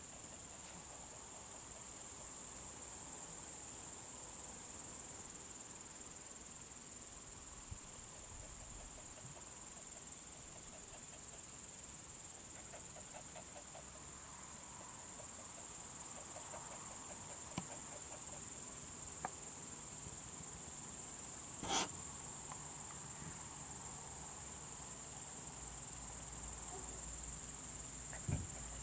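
Crickets chirring steadily in a dense, high-pitched chorus, with one sharp click about three-quarters of the way through.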